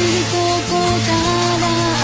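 Japanese pop theme song: a voice singing a melody of held notes over instrumental backing with a steady bass.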